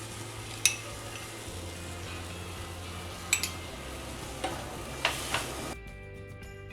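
Powdered paneer, moistened with a little milk, sizzling as it fries in a pan, with a spoon stirring and a few sharp scrapes against the pan. Near the end the sizzle cuts off and background music takes over.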